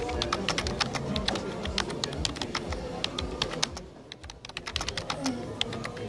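Fast typing on a Trust Erou Silent laptop-style keyboard with concave plastic keys: a quick, dense run of key clicks, with a brief pause a little past the middle before the typing picks up again.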